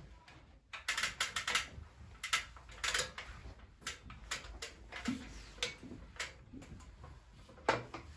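Handling noise from a handheld camera being moved: irregular clicks and short rubs in uneven clusters that begin about a second in, with one louder click near the end.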